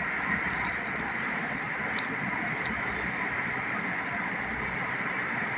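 Steady hiss with faint, scattered soft ticks from fingers mixing rice and potato kuzhambu on a plastic plate.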